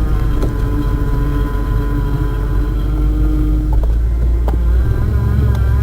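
1991 Ford F-150's 302 V8 running as the truck is driven, a deep rumble with a steady whine from the power steering pump over it. The engine note shifts near the end.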